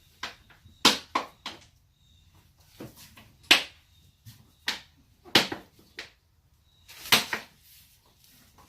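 A run of sharp clicks and knocks, about nine spread over several seconds, as the air filter box cover is pressed down over a newly fitted filter and its side clamps are snapped shut.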